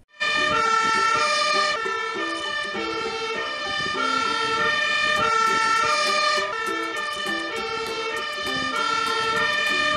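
Fire engine siren sounding a repeating pattern of alternating high and low notes, loud and steady, as a MAN aerial-ladder fire engine moves off on an emergency run.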